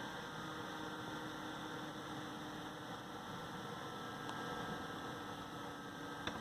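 AMD Wraith Spire stock CPU cooler fan running, a steady whoosh of air with a hum and faint steady tones: the loud fan noise the owner is recording. A small click sounds near the end.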